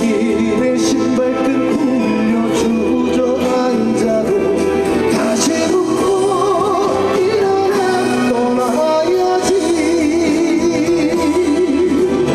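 Live trot band music at full volume, with a melody line that wavers heavily with vibrato over a steady accompaniment.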